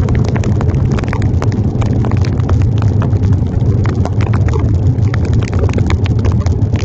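Raindrops tapping irregularly and rapidly on a handlebar-mounted phone while cycling through heavy rain, over a steady low rumble of wind and ride noise on the microphone.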